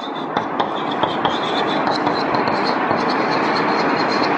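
Chalk writing on a chalkboard: a steady scratching with small taps scattered through it.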